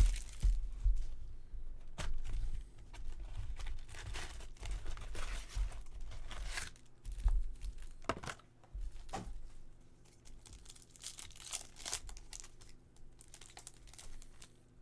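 Baseball card pack wrappers being torn open and crinkled, in a series of irregular rustling bursts that thin out toward the end.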